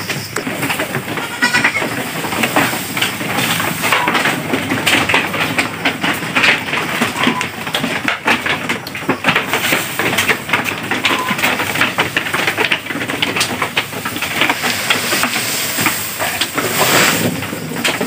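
Goats bleating now and then over a steady rustling and crackling of Napier grass being carried through bamboo goat pens.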